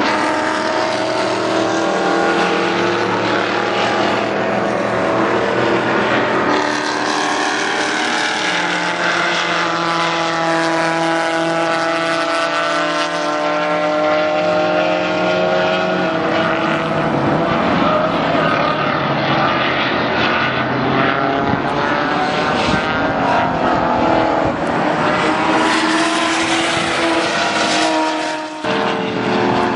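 Race car engines running hard as cars lap the road course, with the pitch rising and falling as they accelerate, shift and pass. There is a brief drop near the end before another car comes up loud.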